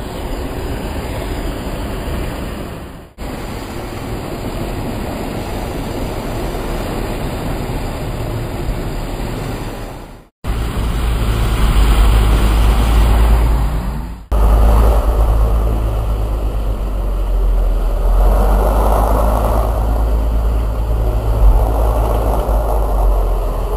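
Off-road 4x4s, a Toyota Land Cruiser and then a Jeep Grand Cherokee, driving through deep mud: engine noise mixed with splashing and churning mud. The sound changes abruptly at cuts about 3, 10 and 14 seconds in, and from about 10 seconds on a heavy low rumble is the loudest part.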